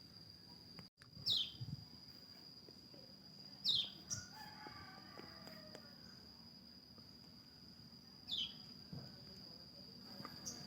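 Pleci (white-eye) giving short, thin, high calls that fall in pitch, about five of them spread over the stretch, over a steady high-pitched tone.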